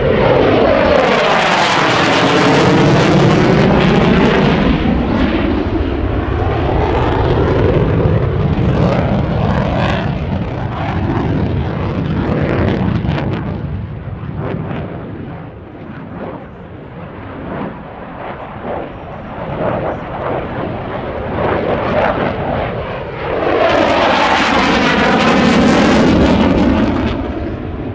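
Mirage 2000 fighter jet's single turbofan engine roaring through two close passes: loud for the first few seconds with the pitch sweeping as it goes by, dropping off through the middle, then loud again with a second sweeping pass near the end.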